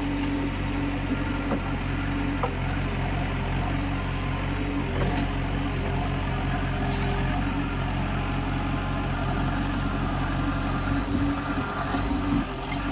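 Diesel engine of heavy earthmoving or farm machinery running steadily at low speed, with a few light knocks.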